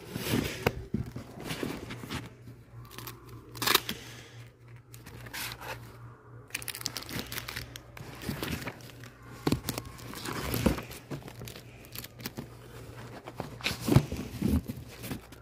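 Comic books being shuffled and straightened in a box by hand: irregular rustling and crinkling, with a few sharper knocks as the books are pushed upright.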